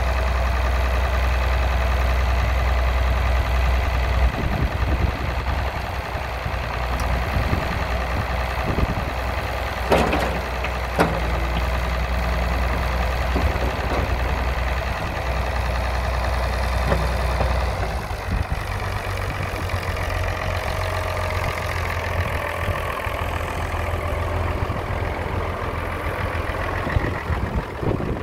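Farmall 560 tractor engine running steadily while the Farmhand loader is raised, with two sharp knocks about ten and eleven seconds in. The deep low drone eases about eighteen seconds in.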